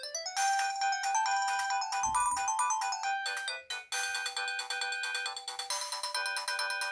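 Sharp GX12 mobile phone playing polyphonic ringtone melodies through its loudspeaker, switching to another tune about four seconds in.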